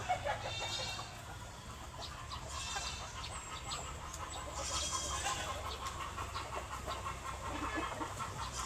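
Chickens clucking and calling: a few short pitched calls in the first half, then a quick, steady run of clucks from about halfway, over a steady low hum.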